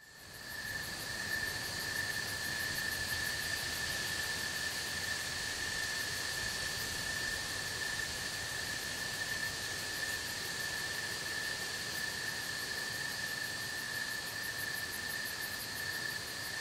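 Insect chorus: a steady, continuous high trill with fainter rapid pulsing above it, fading in over the first second.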